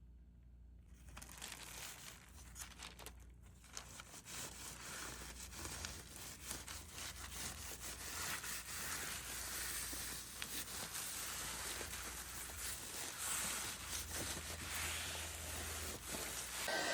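Tissue paper crinkling and rustling as it is handled and pressed onto a glue-coated cutting board. It is faint at first and grows louder from about four seconds in.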